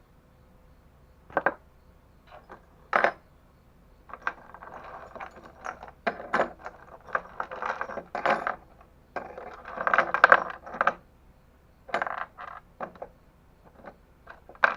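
Small metal hardware clinking and clattering, with rustling in between, as a bag of engine-kit parts is rummaged through in search of the mounting bolts.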